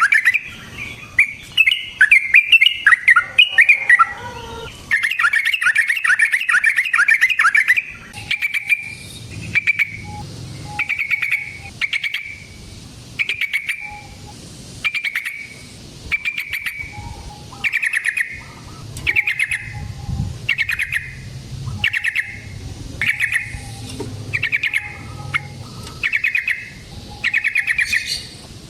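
Yellow-vented bulbul (trucukan) calling. A fast run of chattering notes for the first several seconds gives way to short, bubbly phrases repeated about once a second.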